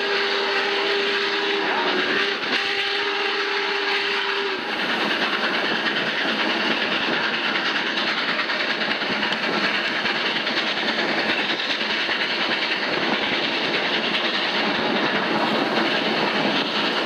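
Union Pacific 3985's steam whistle blowing a long chord, with a brief break about two seconds in, and cutting off after about four and a half seconds. The steady rushing and clatter of the train rolling on the rails goes on under it and afterward, heard from aboard the train.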